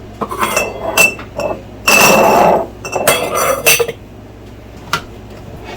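Kitchenware being handled on a counter: glass and metal clinking and clattering in a string of sharp knocks, with a brief rush of scraping noise about two seconds in.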